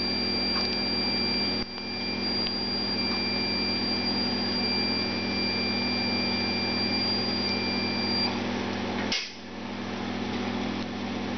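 Electrosurgical coagulation unit sounding its steady, high activation tone while bipolar forceps coagulate a cat's spermatic cord during castration; the tone stops about eight seconds in. A steady low electrical hum runs underneath.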